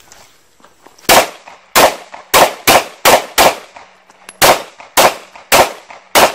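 Two pistols, one in each hand, fired in quick succession: about ten sharp shots, a run of six, a pause of about a second, then four more.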